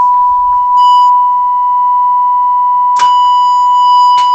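A steady 1 kHz test tone from a function generator playing through the 1950 AWA Radiola 528MA valve radio's audio amplifier. About three seconds in, with a click, it changes from a pure sine tone to a buzzier square wave; a few other clicks sound from the controls, with a faint mains hum underneath.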